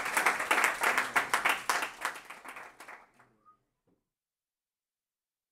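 Audience applauding, many hands clapping, thinning and dying away about three to four seconds in.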